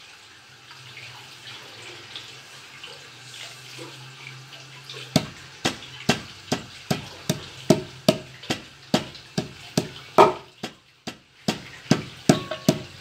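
A round pounder knocking on a wooden cutting board as it crushes chopped walnuts and onion, about two to three knocks a second, starting about five seconds in after a stretch of steady hiss with a low hum.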